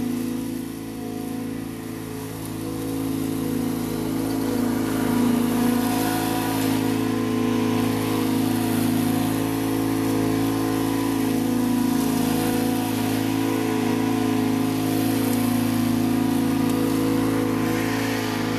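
Husqvarna Z248F zero-turn riding mower running at a steady engine speed while mowing and mulching leaves. Its discharge chute is blocked by a homemade mulch kit made from a license plate. It is quieter at first and grows louder a few seconds in as the mower passes close.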